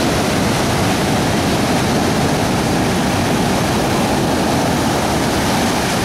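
Ocean surf breaking close by and washing up the sand, a loud steady roar.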